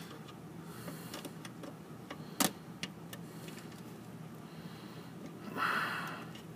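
Small screwdriver working at the tiny screws of a model turntable's wiper box: faint scattered ticks, one sharper click about two and a half seconds in, and a short hiss near the end.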